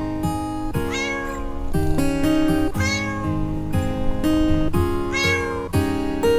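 A cat meowing about four times, each call rising and falling in pitch, over gentle background music with plucked guitar.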